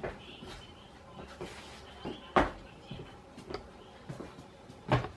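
Scattered light clicks and knocks, with two sharper knocks about two and a half seconds in and again near the end.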